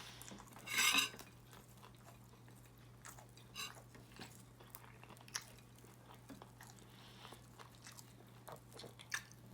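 Close-miked eating: a loud crunchy bite about a second in, then quiet chewing with small wet mouth clicks.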